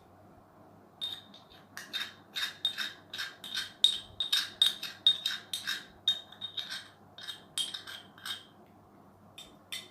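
A spoon clinking repeatedly against a glass bowl, about three clinks a second, as tahini is worked into a mixture of black seed, ginger and oils. The clinking starts about a second in and stops near the end.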